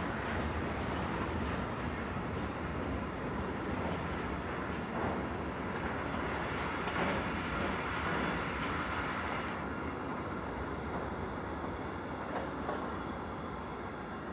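Freight train of empty Eas open wagons rolling past, a steady rumble of wheels on rail with scattered metallic clanks and rattles from the empty wagon bodies, easing off slightly near the end.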